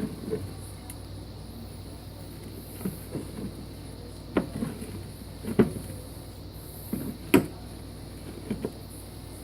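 Two beer glasses being shuffled around and set down on a table: a string of short, irregular knocks, some in quick pairs, the sharpest about three quarters of the way through.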